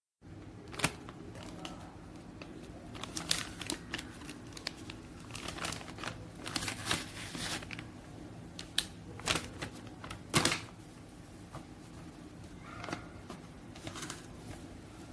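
Paper dust bags and their packaging being handled: irregular rustling, crinkling and light clicks, with a few sharper taps, over a steady low hum.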